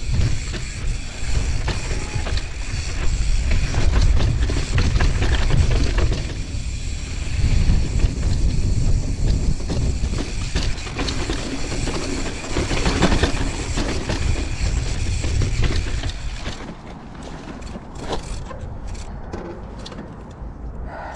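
Mountain bike riding down a dirt trail: a continuous rumble of wind on the microphone and tyres rolling over dirt, with the bike rattling. It eases off somewhat about three quarters of the way through.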